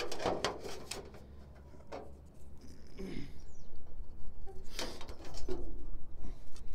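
A metal speed square knocking and sliding against painted sheet-metal flashing, with a pencil scratching a line along the square on the metal.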